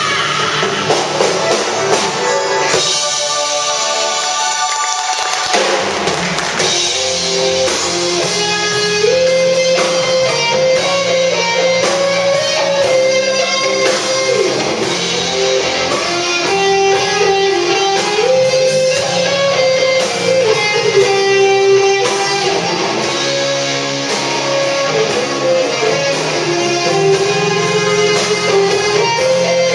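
Live rock band playing: strummed electric guitars, keyboard and drum kit, with a held melody line stepping between a few notes over a steady beat.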